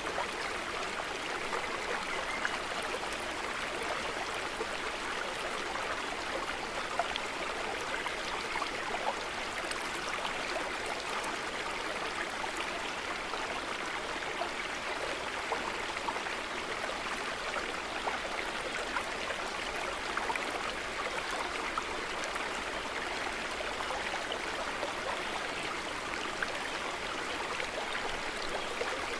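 Small stream running steadily over rocks, a continuous rush of water with many small splashes and trickles through it.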